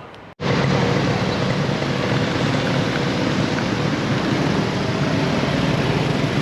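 Steady loud rushing noise with a low engine hum underneath, as from a running vehicle, starting abruptly about half a second in.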